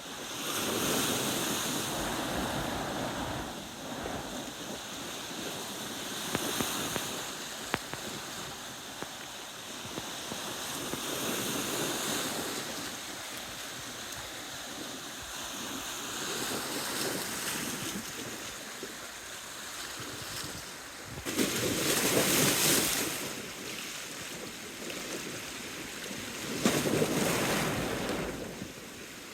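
Small waves washing against the shore of the bay in strong, gusty wind, the wash swelling and falling away every few seconds, loudest twice near the end.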